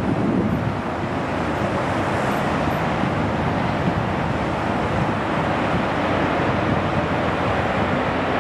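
Twin-engine narrow-body jet airliner on its landing rollout, its engines making a steady, loud rushing noise as it rolls down the runway.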